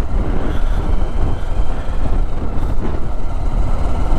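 Motorcycle engine running as the bike rides slowly along a rough lane and gently picks up speed, under a heavy, steady low rumble.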